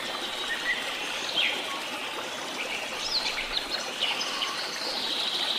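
Water splashing and churning as several people swim in a pond, with birds giving short chirps throughout.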